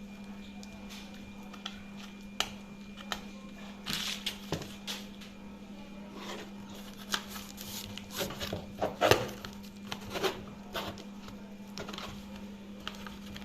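Cardboard and tape packaging being handled and pulled open by hand: scattered crinkles, rustles and light knocks, loudest about nine seconds in, over a steady low hum.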